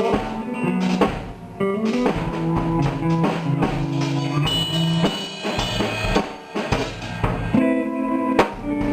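Instrumental rock band playing: guitar, bass guitar and drum kit in a rough live mix, guitar notes held and changing every second or so over the bass line and a steady beat.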